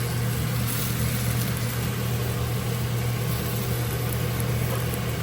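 Steady low mechanical hum with an even hiss above it.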